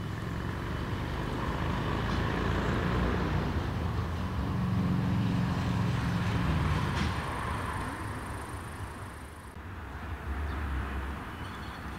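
Engine rumble of a passing vehicle, swelling to its loudest about five to seven seconds in and then fading, with an abrupt change in the background about ten seconds in.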